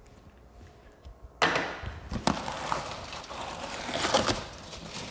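Cardboard box being handled and lifted off: rustling and scraping of cardboard with several sharp knocks, starting suddenly about a second and a half in after a quiet moment.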